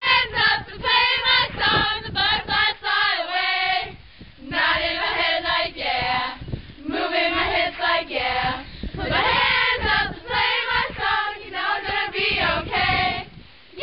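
A group of children singing together in unison, in short high-pitched phrases with brief pauses between them.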